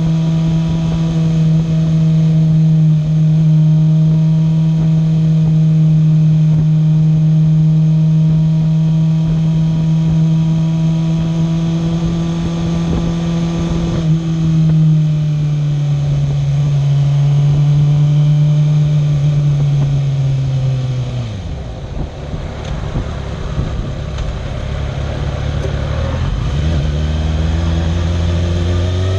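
Kawasaki ZX-6R's inline-four engine running at a steady pitch while cruising, then dropping lower about halfway through as the bike slows. The pitch falls sharply to a low note about two-thirds of the way in, then rises again near the end as the engine pulls away.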